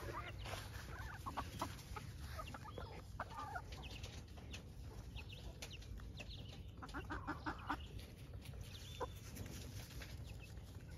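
A flock of chickens clucking and chirping in short calls, with a quick run of about five clucks about seven seconds in, over a steady low rumble.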